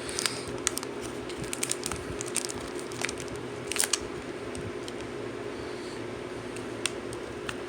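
An opened foil trading-card booster pack crinkling and rustling as a card is stuffed back into it: a scatter of small crinkles and clicks, mostly in the first four seconds, over a steady low hum.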